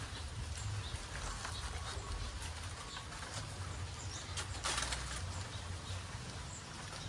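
Outdoor ambience: a steady low rumble with scattered light rustling and a few faint bird calls, and a louder brief rustle about four and a half seconds in.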